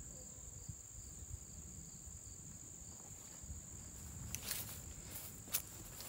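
Insects trilling steadily on one high tone, with two or three short clicks near the end.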